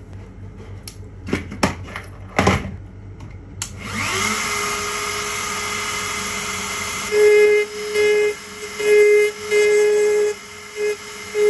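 A few handling knocks, then a handheld rotary engraving pen switches on about three and a half seconds in, spins up with a short rising whine and runs steadily. From about seven seconds in, the whine comes in short, louder strokes of about a second each as the bit is worked against the plastic tail-light lens.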